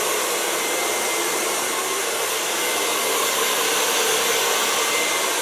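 Handheld Kyone hair dryer blowing steadily at close range while hair is blow-dried.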